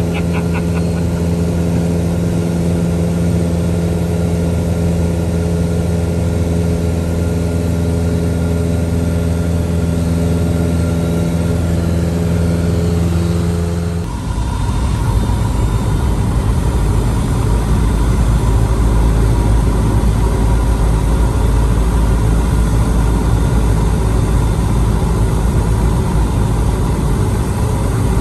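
A vehicle engine running with a steady drone. About halfway through the sound changes abruptly to a deeper, rougher rumble.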